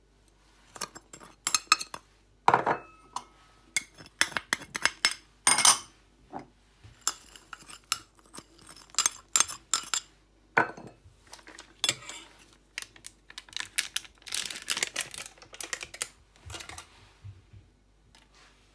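Metal spoon clinking and scraping against a ceramic bowl as dry powder is spooned in and moved around, in an irregular run of sharp clinks with a longer spell of scraping near the end.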